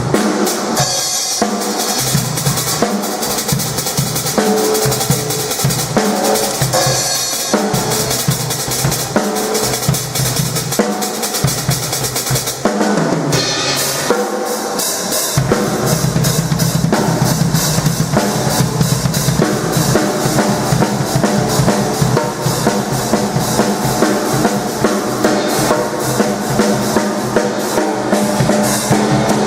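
Drum kit played loud and busy, with bass drum, snare and a steady wash of cymbals. The pattern changes about halfway through.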